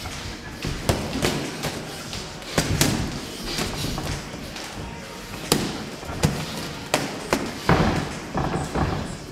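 Boxing gloves landing during sparring: irregular thuds and slaps of punches, some harder than others, in a gym.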